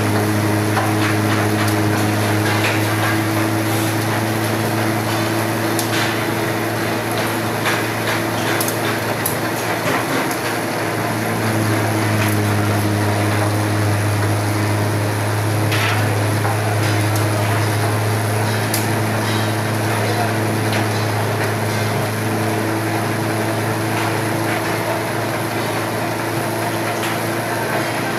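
Model CS 5 single-shaft waste shredder running under load: a steady machine hum with continual crackling and clattering as the fed pieces are chopped.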